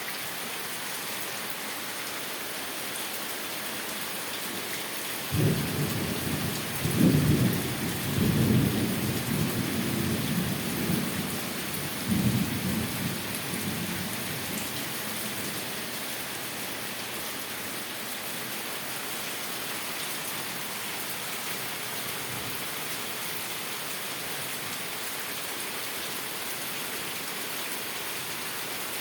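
Torrential rain pouring down with a steady hiss. A thunder rumble rolls in about five seconds in, swelling several times, and dies away after about fourteen seconds.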